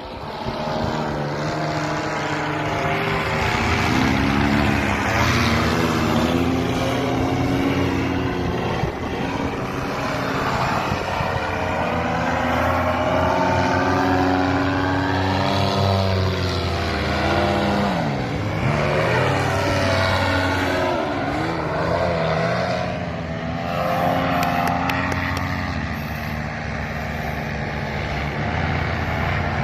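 Small propeller aircraft engine running steadily, its drone sweeping up and down in pitch a few times, most sharply in the middle of the stretch.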